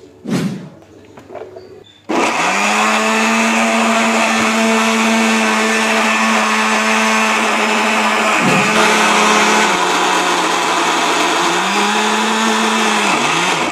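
Countertop electric blender grinding sliced onions into paste. After a brief bump, the motor starts about two seconds in and runs loudly and steadily. It dips briefly once, drops lower in pitch for a couple of seconds, rises again, and stops just before the end.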